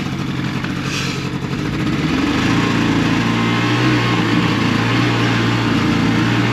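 Snowmobile engine running, picking up revs about two seconds in and then holding steady at the higher speed.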